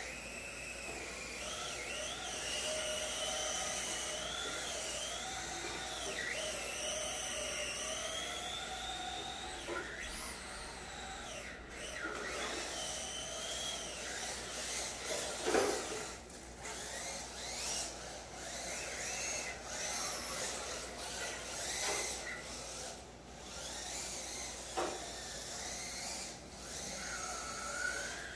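Electric motors of two RC drift cars whining, the pitch rising and falling as the throttle is worked, with a few sharp knocks scattered through, the loudest about halfway.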